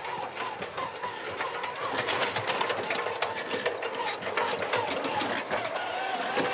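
Small electric tractor (Solar Electric Tractor Model 12) driving, its electric motor giving a whine that wavers in pitch, with many irregular clicks and rattles over it.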